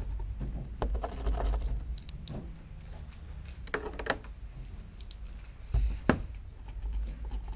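Pen writing and paper handling on a tabletop: scattered small clicks, taps and rustles, with a sharp tick about six seconds in.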